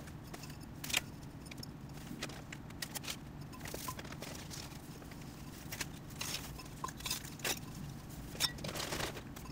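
Potting soil being scooped with a small metal trowel and tipped into a plant pot: scattered scrapes, taps and crackles of soil, trowel and newspaper.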